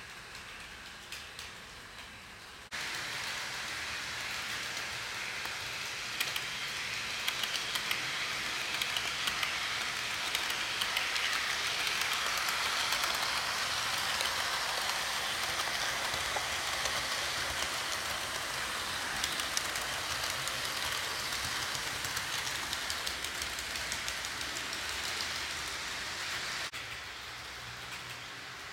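HO-scale model train running on its track: the locomotive's motor and wheels give a steady whirring hiss, with rapid small clicks of wheels over rail joints. It gets suddenly louder a few seconds in, is loudest in the middle as the locomotive passes close, and drops back near the end.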